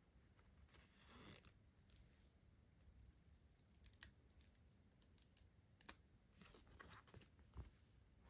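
Quiet handling of stationery and its packaging: a soft swish about a second in, a few small sharp clicks or taps around the middle, and light rustling near the end.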